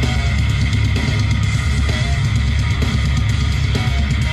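Rock music with electric guitar and drums, played at full volume through an Eltronic 20-05 Dance Box 500 portable party speaker with two 12-inch woofers. It measures about 105 dB at one metre, with heavy bass.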